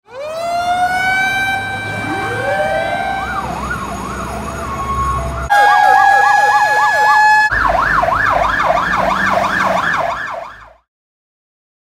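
Fire engine sirens: one winds up to a steady wailing note while a second rises beneath it, then they turn to a fast up-and-down yelp. The sound jumps abruptly twice, first to a loud steady high note over the yelp, then to a quicker yelp alone, before fading out near the end.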